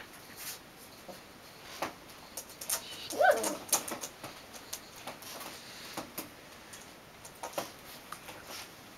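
A Belgian Malinois puppy gives a short vocal sound that drops in pitch about three seconds in, amid scattered light taps and scratches as it paws at a mirror.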